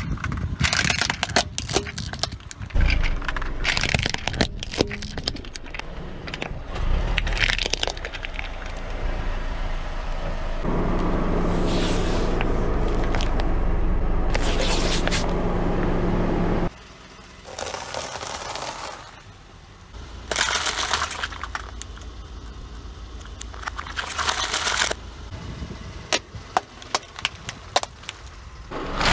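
Car tyre rolling over and crushing hard plastic toys and a computer keyboard: repeated sharp cracks, snaps and crackling of breaking plastic, with gritty scraping on asphalt. Partway through there is several seconds of steady car engine running close by, then further scattered cracks.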